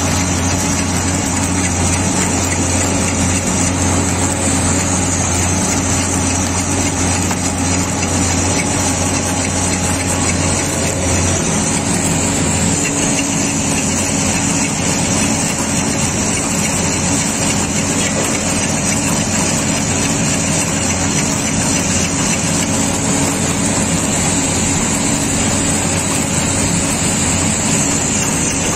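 Mobile flash-butt rail welding plant running with a steady machinery drone. A strong low hum under it drops away about twelve seconds in.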